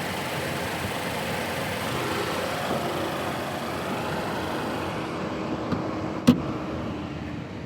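Turbocharged car engine idling steadily while air is burped out of its coolant system, with one sharp click a little after six seconds.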